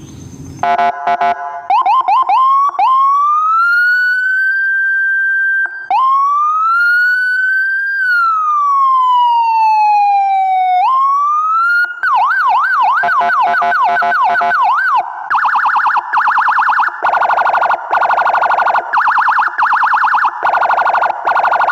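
Electronic vehicle siren running through its tones. It gives a few short chirps, then a wail that rises and holds, then a slower wail that rises and falls. It ends on a fast yelp warble, then a rapid pulsing tone in short bursts.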